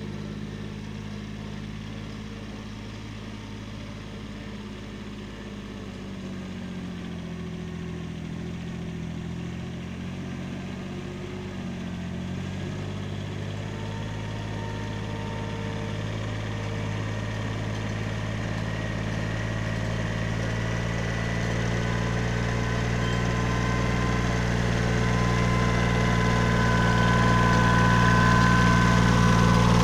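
Kubota B7100 compact tractor's three-cylinder diesel engine running as it pulls a drag box along a dirt driveway, growing steadily louder as it comes closer. Its engine speed wavers for a few seconds early on, then holds steady.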